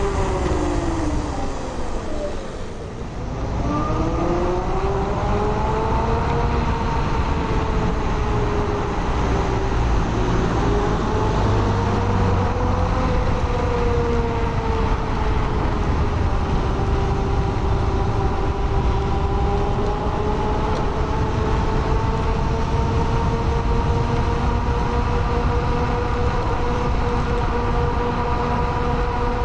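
Blade 10 electric scooter being ridden on new tires: a whine that follows speed, dropping as the scooter slows nearly to a stop about three seconds in, then rising and holding steady, over constant road and wind rumble.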